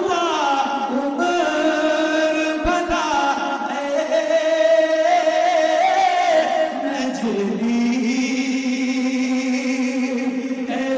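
A man singing Urdu verse into a microphone in a slow, drawn-out style, holding long wavering notes and sliding between pitches, with no instruments.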